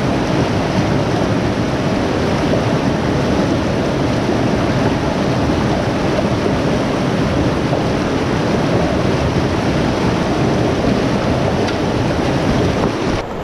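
Fast mountain river rushing over rocks: a loud, steady wash of whitewater close by, which drops off abruptly near the end.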